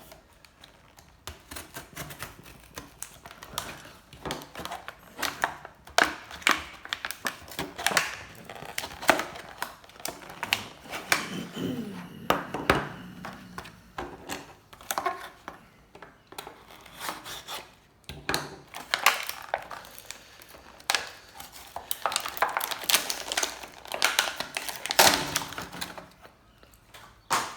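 Plastic retail packaging being worked open by hand to free a multi-tool: an irregular run of crinkling, crackling, clicks and knocks, with louder clusters in the middle and near the end.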